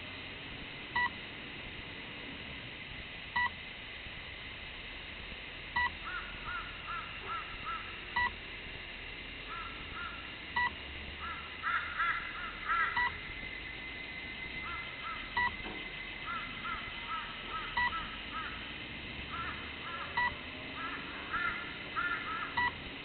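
A short electronic beep repeating about every two and a half seconds from the crashed RC wing's electronics, with birds calling in clusters of short repeated notes between the beeps.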